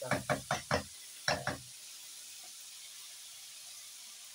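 Silicone spatula stirring diced chicken and onions in a karahi: about five quick strokes against the pan, then one more, followed by a faint steady sizzle of the chicken frying in oil with onion and garlic.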